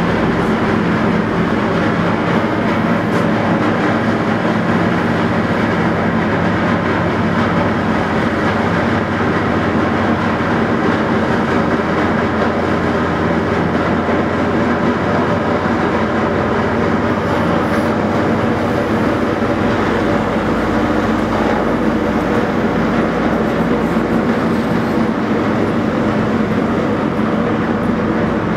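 Car ferry's engines running with a steady drone as the ferry pulls away from its pier. A deeper rumble joins in about two-thirds of the way through.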